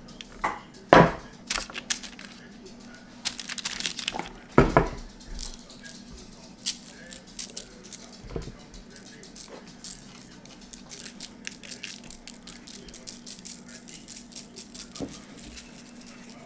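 Kitchen handling sounds: dishes and utensils knocking a few times, with sharp knocks about a second in and near the middle, then a run of quick light taps and clicks. A faint steady hum lies underneath.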